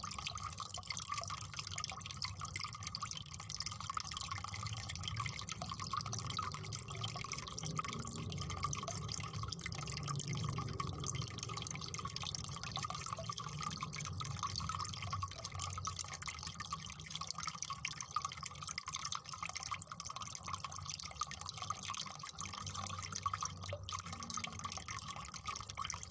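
Steady, even pattering of dripping water, a fine continuous crackle of many small drops.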